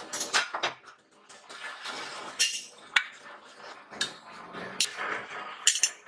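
Steel sliding door latch parts clinking and clattering as they are handled and set down, about a dozen sharp, uneven metal-on-metal clinks.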